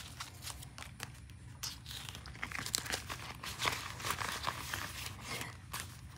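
Paper dollar bills and the clear plastic pockets of a cash-envelope binder rustling and crinkling as they are handled, with irregular small clicks; near the end the binder's plastic pages are flipped.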